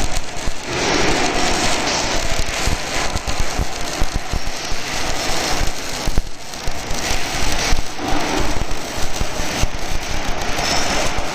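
Welding arc crackling and sputtering steadily as a carriage-mounted torch runs a weld.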